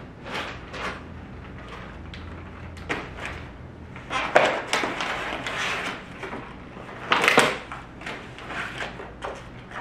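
Paper grocery bag rustling as it is set on a table and groceries are taken out and put down: a run of short crinkling, handling noises, loudest about four and seven seconds in.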